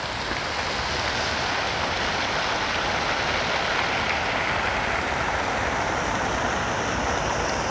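Fountain jets splashing steadily into the water of its basin.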